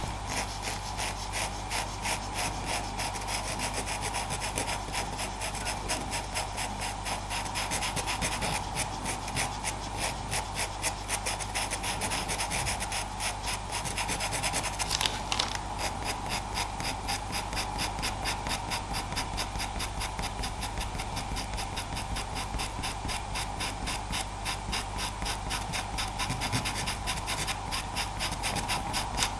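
Faber-Castell Pitt pastel pencil scratching on Pastelmat sanded paper in quick, short strokes, several a second, laying in a light base layer of fur. A faint steady hum runs underneath.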